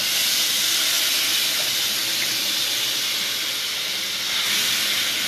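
Tomato sauce sizzling hard as it is ladled into hot fat in a stainless steel sauté pan, a loud steady hiss that swells again a little after four seconds in as another ladleful goes in.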